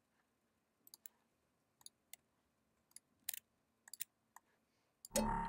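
Scattered computer clicks, about ten short sharp clicks over a few seconds as files are selected and dragged. A brief louder burst comes near the end.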